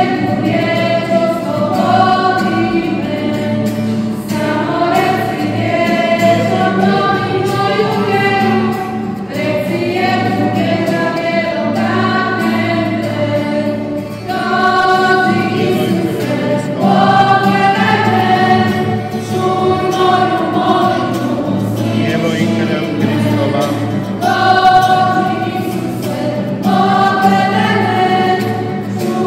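Church choir singing a hymn in phrases of held notes, with short breaths between phrases.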